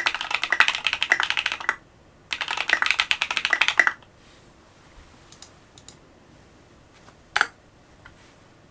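Typing on a Duck Orion V3 custom mechanical keyboard with lubed Holy Panda tactile switches, an FR4 plate and SA-profile keycaps. Two runs of rapid keystrokes end about four seconds in, followed by a few scattered single key presses.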